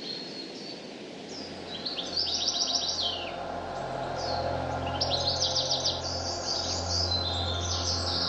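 Small songbirds chirping, with two fast rattling trills, over a low steady drone.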